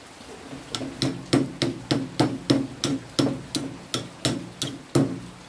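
About fourteen even knocks, roughly three a second, each with a short low ring, as of something being struck repeatedly.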